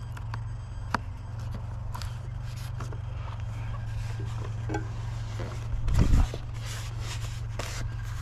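Wind rumbling steadily on the microphone, with one strong gust about six seconds in, and scattered light clicks and scrapes from hands handling a foam RC model plane on a wooden table.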